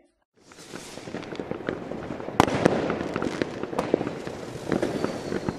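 Fireworks exploding: a dense crackling with scattered sharp bangs, the loudest about two and a half seconds in. It starts after a moment of silence.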